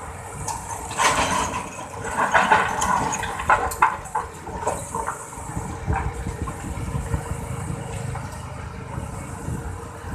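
Excavator's diesel engine running steadily, with bursts of clatter and rushing as earth and stones are dumped or pushed, loudest about one to four seconds in.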